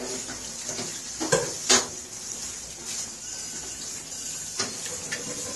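A few light, sharp clicks of tableware being handled, the loudest two close together about a second and a half in and another near the end, over a steady background hiss.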